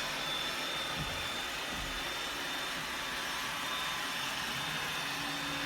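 Roomba robot vacuum running on the floor: a steady whirring hum with a faint high whine.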